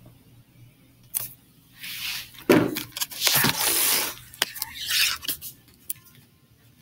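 Clicks, rustling and scraping close to the microphone, with a sharp click about a second in and the loudest, a knock, about two and a half seconds in.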